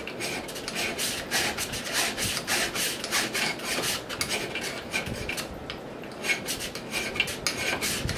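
Hand file rasping back and forth in quick repeated strokes across a stepper motor's metal shaft held in a vise, cutting a flat into the shaft for a set screw to bite on.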